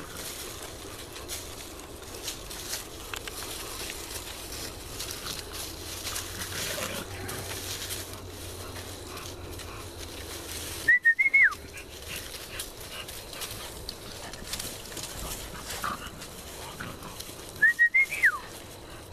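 A person whistling twice, about seven seconds apart: each time a short, loud whistle that rises, holds and then drops sharply in pitch. Underneath is a steady rustle of feet moving through dry leaf litter.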